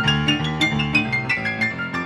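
Piano music: quick bright treble notes over a steady bass line.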